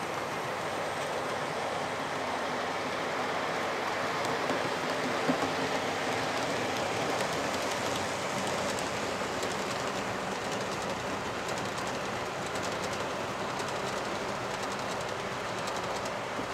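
Model trains running on a layout: a steady rolling noise of small wheels on track, with light rapid clicking over rail joints and points that thickens in the second half. There is one louder knock about five seconds in.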